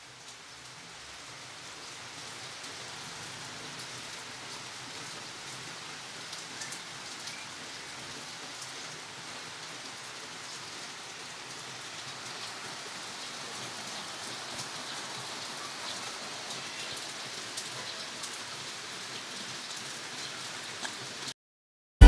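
Steady rain falling, with faint ticks of single drops through it. It fades in over the first two seconds and cuts off suddenly near the end.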